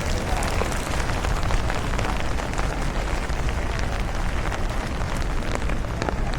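Steady rain falling, with many small drop ticks over an even hiss, and wind buffeting the camera's built-in microphone in a low rumble.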